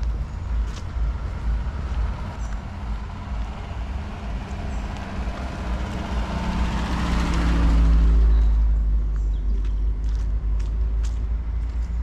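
A motor vehicle passes by. Its sound swells over several seconds, is loudest just after the middle, and then fades, with an engine note that drops in pitch as it goes by.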